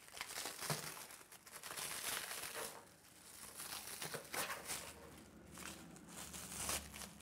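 A clear plastic bag crinkling and rustling in uneven bursts as it is pulled off a rowing machine's handle.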